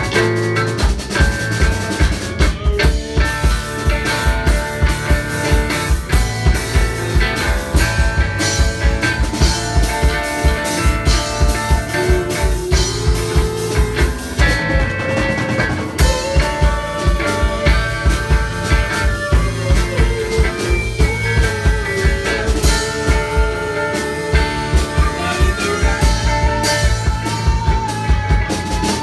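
Live rock band playing: electric guitars and bass over a drum kit keeping a steady beat, with a lead line sustaining and bending in pitch.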